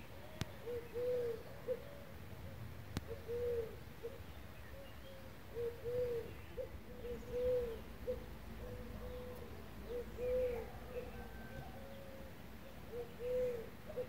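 A dove cooing in repeated three-note phrases, the middle note longer and louder, a phrase every two to three seconds.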